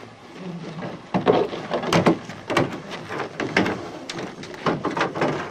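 A series of knocks and bumps as canoes are shifted into place on a minivan's roof rack, starting about a second in.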